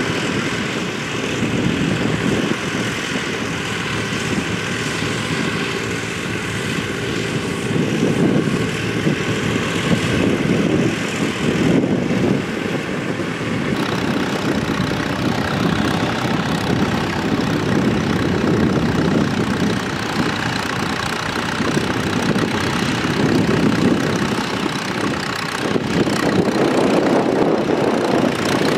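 Engines of vintage farm tractors running steadily as the tractors pull ploughs through a field.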